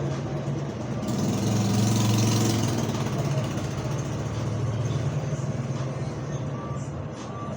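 A motor vehicle's engine running at idle, steady and low, swelling louder about two seconds in and then easing back.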